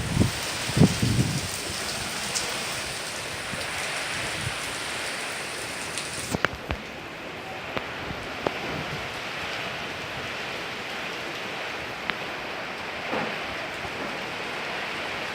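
Steady rain falling during a windstorm, with a few scattered sharp ticks of drops striking something; a couple of low thumps in the first second or so.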